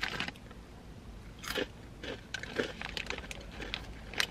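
Mouth crunching on Kurkure Masala Munch, crisp corn-based puffed snack sticks, as they are bitten and chewed: a sharp crunch about a second and a half in, a few softer crunches after it, and another sharp one near the end.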